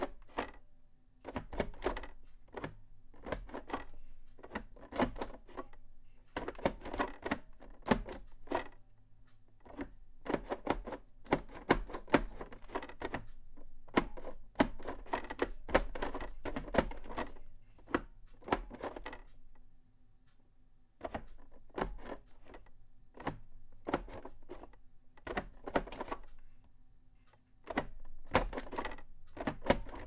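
An Orbitouch keyless keyboard being typed on: its two domes are shoved into position over and over, giving quick irregular clusters of clicks and knocks with brief pauses between them, and a longer pause at about 20 seconds and again just before 28 seconds.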